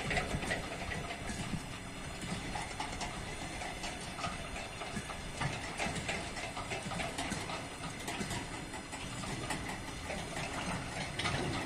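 Empty freight flat wagons rolling past, their wheels clattering and clanking irregularly over the rails, with a ChME3 shunting diesel locomotive's engine running in the distance.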